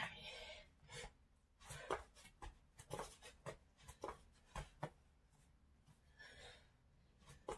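Faint soft taps and scuffs of sneakers landing on a foam exercise mat as the feet jump apart and together in plank jacks, irregular at about two a second, thinning out after about five seconds.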